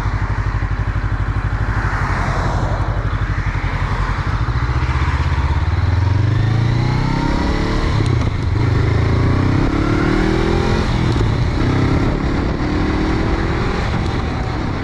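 Honda CB500F parallel-twin engine running on the road, its note climbing in pitch several times as the bike accelerates up through the gears, with wind rush over the camera mic.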